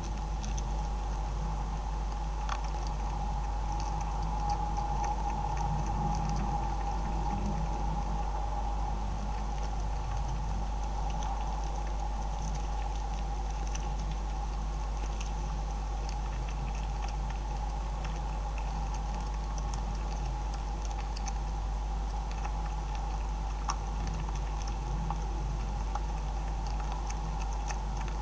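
Beavers chewing and crunching feed close to the microphone: faint, irregular small crunches and ticks over a steady hum.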